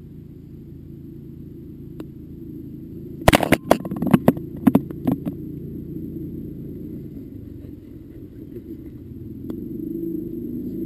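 Golf ball dropping into the cup and rattling against the cup and the camera sitting in it: a quick cluster of sharp knocks about three seconds in, dying away over about two seconds. A steady low rumble runs underneath.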